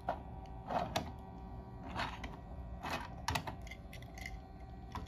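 Light, irregular clicks and taps, about six of them, from die-cast toy cars being handled and set down on a plastic display turntable, over a faint steady hum.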